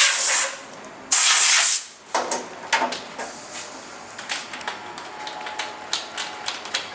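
A loud hiss that stops about half a second in, then a second short burst of hissing lasting under a second, followed by scattered light clicks and knocks.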